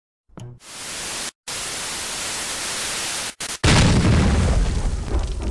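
Intro sound effects for an animated logo: a loud hiss of static, cut off briefly twice, then about three and a half seconds in a louder, deep whoosh that slowly fades away.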